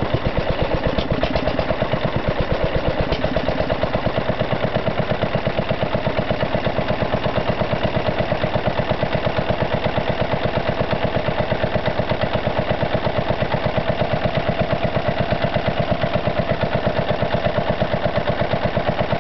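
International Harvester LB 3-5 HP single-cylinder stationary engine running at a steady speed, its firing beat even and unchanging.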